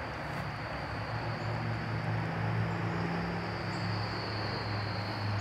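Outdoor ambience: insects droning steadily at one high, even pitch, over a low steady hum.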